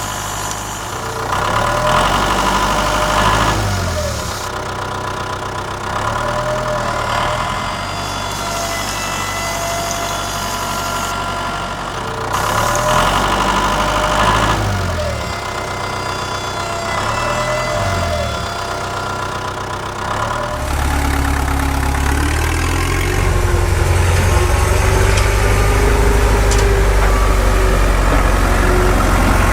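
A machine runs with a steady hum and whining tones that rise and fall every few seconds, growing heavier and louder from about twenty seconds in.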